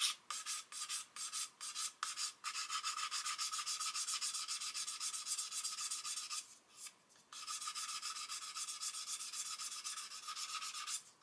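Hard 400-grit sanding stick rubbed in quick back-and-forth strokes along the glued seam of a plastic model fuselage, sanding the seam flush. The strokes stop briefly a little past halfway, then carry on.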